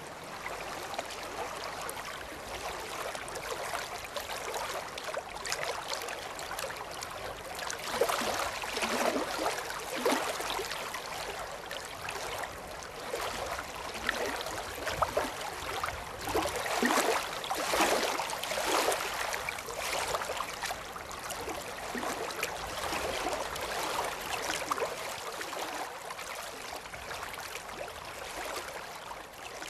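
Running water, a steady rushing and gurgling with irregular louder splashing swells.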